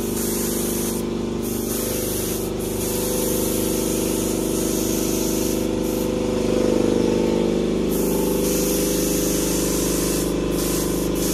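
Air spray gun spraying contact adhesive: a loud hiss in long bursts, broken off briefly several times as the trigger is released and pulled again, over a steady low hum.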